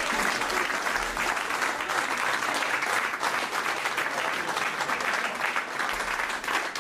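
Live theatre audience applauding with dense, steady clapping.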